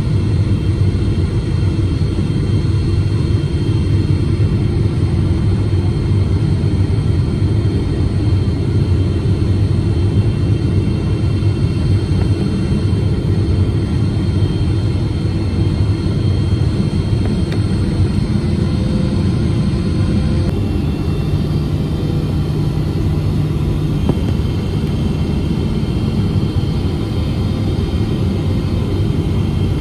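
Steady cabin rumble of a Boeing 777-300ER's GE90 engines and airflow during the descent on final approach. Its tone shifts slightly about two-thirds of the way through.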